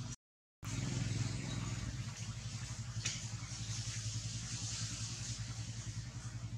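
Steady low engine-like hum with a constant high hiss above it. The sound cuts out completely for about half a second just after the start, then resumes unchanged.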